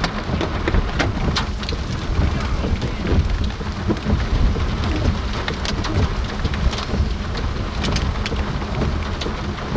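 Rain falling, with scattered drops striking close by as sharp clicks over a steady low rumble.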